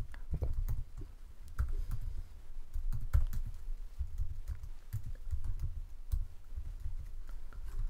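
Typing on a computer keyboard: an irregular run of keystroke clicks.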